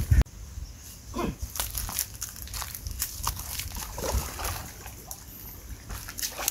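Shallow water sloshing and splashing in irregular small bursts.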